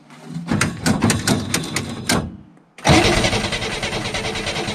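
Air-cooled flat-six of a 1961 Chevrolet Corvair Monza cranking over on the starter in quick even pulses, then, after a brief break about two and a half seconds in, running loud and steady. It is a first start after long sitting, running on fuel poured straight into the carburetors.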